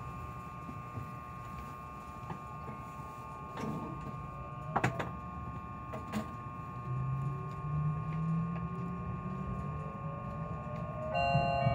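Meitetsu μSKY electric train pulling away from a station, heard from inside the car: a few clunks, then the traction motors' whine rising steadily in pitch as the train accelerates. Near the end an onboard chime starts ringing.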